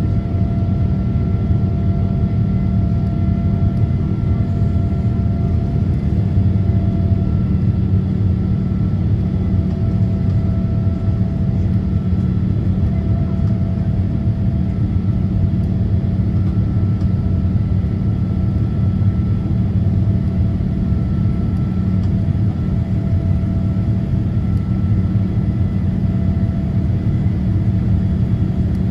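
Boeing 787-9 cabin noise while climbing out after takeoff: a loud, steady rumble of engines and airflow with a faint steady whine above it.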